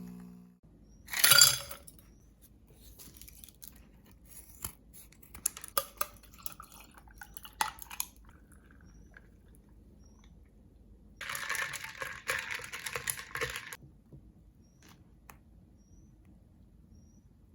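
Kitchen and table handling sounds: scattered clicks and clinks of dishes or utensils, with a loud short rustle about a second in and a noisy stretch of about two and a half seconds a little past the middle.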